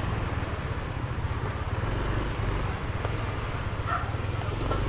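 Steady low rumble of a Yamaha Aerox 155 scooter ride with wind buffeting a helmet-mounted phone microphone.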